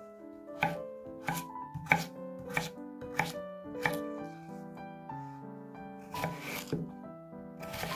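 Chef's knife chopping peeled raw potatoes on an end-grain wooden cutting board: a quick, uneven run of sharp knocks as the blade cuts through onto the board, then a pause and a longer cut about six seconds in. Background music plays throughout.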